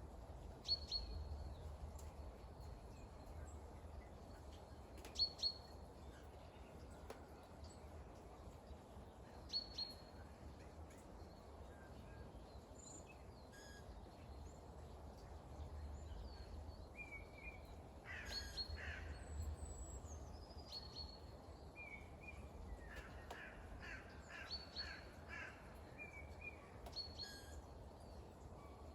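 Birds calling over a steady faint hiss of light rain and a low rumble: scattered short high calls, a harsher crow-like caw a little past the middle, and a rapid run of repeated calls about two-thirds through.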